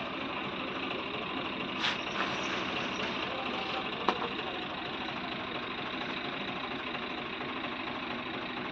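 A machine running steadily, with a short knock about two seconds in and a sharp click about four seconds in.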